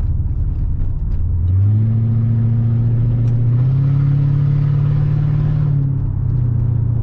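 Mercedes E55 AMG 5.4-litre V8 under way, its note stepping up in pitch about a second and a half in and again a couple of seconds later, holding, then dropping back near the end. It runs without misfire on a replacement coil pack.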